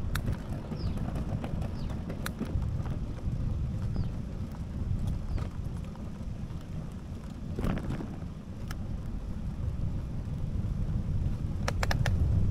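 Wind on the microphone and a steady low rumble of a ride along an asphalt street. Scattered sharp clicks and knocks sound throughout, with a cluster near the end. A few faint, short, high chirps come in the first half.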